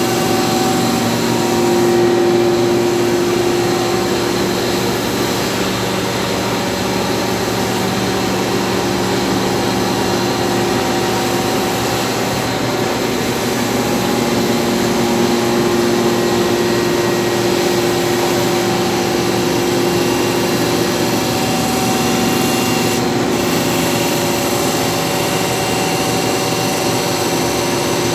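1960s Snow grinder running steadily while a sword blade is ground on it: a continuous grinding hiss over the machine's hum, which swells and eases slightly as the work goes on.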